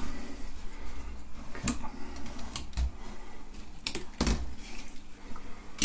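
A handful of irregular light clicks and knocks as small plastic LED light stands are picked up and handled on a tabletop.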